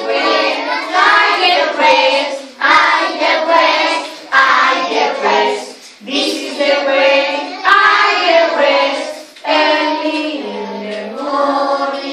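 A group of young children singing together in chorus, in phrases of a couple of seconds with short breaks between them.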